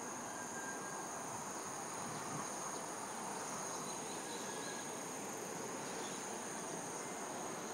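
Insects singing in a steady, unbroken high-pitched chorus over a low, even background hum of distant town noise.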